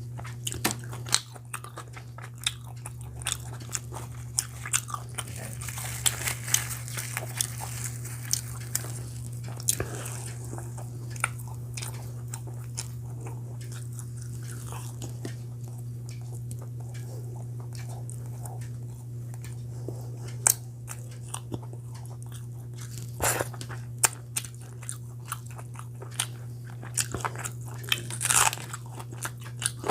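Close-miked mukbang eating: a person biting and chewing chicken curry and puri, with many sharp mouth clicks throughout. A steady low hum runs underneath.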